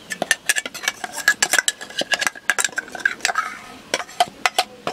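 Steel spoon scraping and knocking inside a stainless-steel mixer-grinder jar, emptying ground coconut paste into a pot: a fast, irregular run of metallic clinks and scrapes with a faint ring from the jar.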